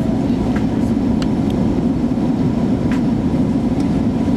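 Steady low cabin roar of an Airbus A380 in flight, heard from inside the cabin: airflow and its Rolls-Royce Trent 900 engines. A few faint ticks sound over it.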